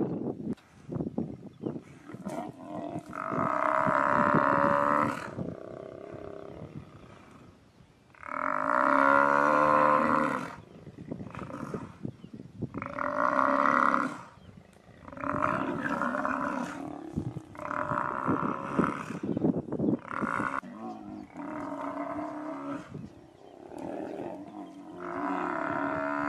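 Cape buffalo bellowing in distress while lions pull it down, about eight long, loud calls a few seconds apart, mixed with lions growling.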